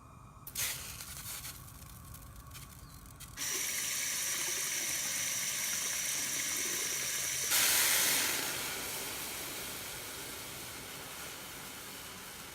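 Steady rushing hiss like running water. It starts abruptly a few seconds in, surges louder about halfway through, then slowly eases.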